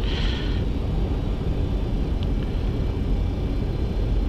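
Steady low rumble of airflow and engines on the flight deck of a Boeing 737-200 on final approach, gear down and flaps 30. There is a short hiss right at the start and a faint click about two seconds in.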